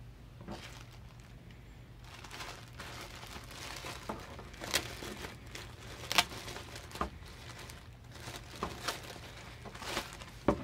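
Clear plastic poly bag crinkling and rustling as hands open it and slide a packaged pair of boxers out, with several sharp crackling snaps, the loudest about six seconds in.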